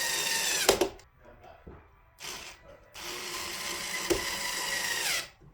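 Handheld electric drill driving small screws into a door latch plate: the motor whines in two long runs, with a short burst between them, and each run drops in pitch as it stops.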